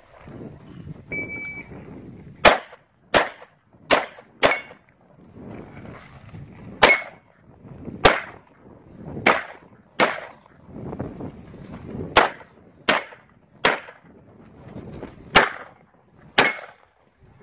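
Handgun shots fired at an IPSC practical shooting stage: about a dozen sharp reports in quick pairs and groups with short pauses between, starting about two and a half seconds in. About a second in there is a short single beep, the shot timer's start signal.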